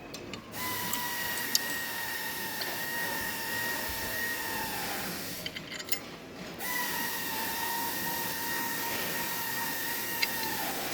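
An electric power tool motor runs steadily in two long runs with a short break between them. It gives a high whine whose pitch sags slightly as each run ends.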